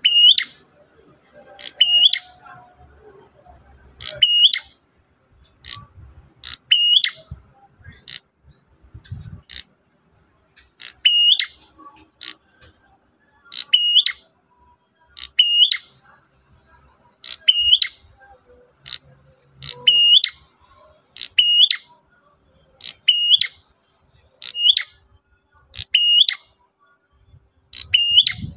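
Prenjak merah (a prinia) giving short, sharp, high chirping calls over and over, about one every second or two: a repeated lure call.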